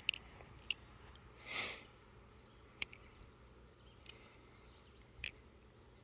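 Balisong (butterfly knife) clicking lightly as it rolls over the fingers and thumb in a zen rollover: about five sharp ticks at uneven gaps. A brief breathy rush of noise comes about one and a half seconds in.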